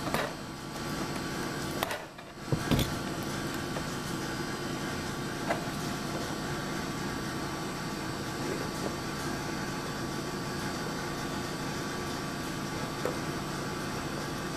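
Steady machine-like hum in the room, with a few sharp clicks and knocks as plastic toy packaging, a utility knife and a die-cast model are handled on a wooden table. The hum drops out briefly about two seconds in, just before the loudest pair of knocks.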